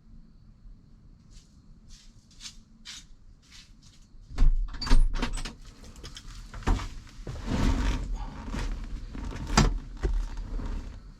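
Hands-on work fitting a steering wheel: a few light clicks and taps, then from about four seconds in a run of loud knocks and clatters, with a scraping, rubbing stretch in the middle, as the wheel parts are handled and worked into place.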